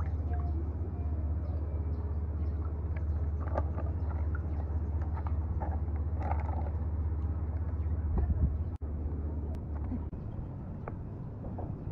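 Water splashing and sloshing in a wooden bowl as a hand dips and swishes a rice paper wrapper, over a steady low rumble.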